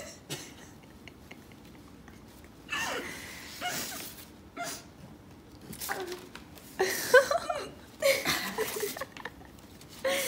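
A young woman crying with emotion: breathy sobs, sniffles and short wavering voiced sounds, coming in scattered bursts after a quiet first few seconds.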